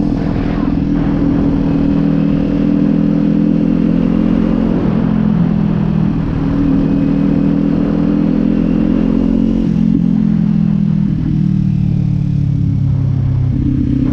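Kawasaki Z400's parallel-twin engine running as the motorcycle rides along. Its note holds steady, steps down in pitch about five seconds in and again about ten seconds in, then rises near the end.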